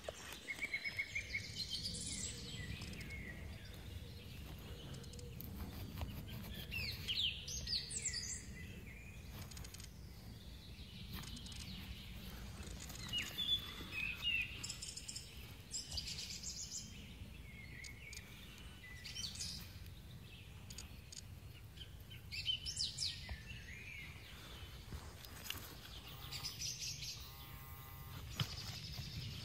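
Small birds chirping on and off over a low steady rumble. Near the end comes a short buzzing tone from a metal-detector pinpointer.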